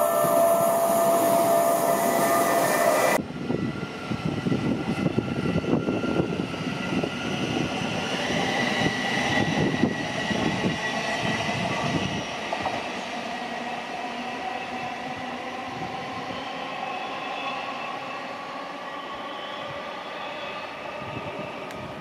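Electric trains passing close. A loud train with a steady whine cuts off abruptly about three seconds in; then a Class 717 Siemens Desiro City electric unit runs past with wheels rumbling and clattering over the rails and its traction motors whining, the whine rising in pitch. About halfway through it settles into a quieter, steadier hum.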